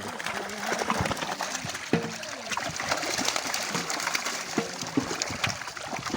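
Pond water splashing and sloshing as a fishing net is worked in it, with many small irregular splashes.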